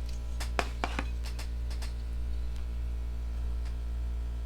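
Steady low electrical hum, with a few light clicks and taps from a folding knife being handled during the first couple of seconds.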